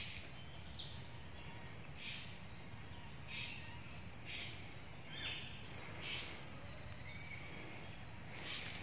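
Outdoor woodland ambience: a steady low hum with short, bright rustling bursts every second or two and a few faint bird chirps.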